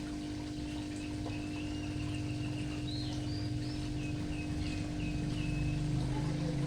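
Small songbird chirping a series of short high notes over a steady low hum and rumble.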